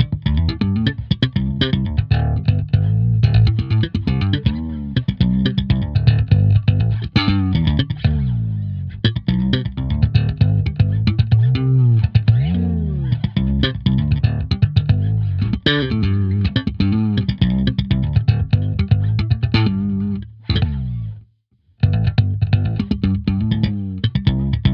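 Bass Collection fretless bass (the Jive Bass) played in a loose run of quick plucked notes, with many sliding glides between pitches. The playing stops briefly near the end, then resumes.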